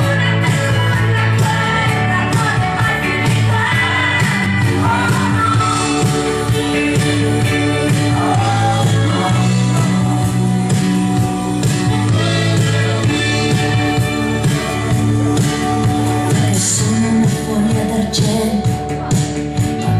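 A singer's voice over a loud backing track with a steady beat, played through a club sound system and sung into a handheld microphone.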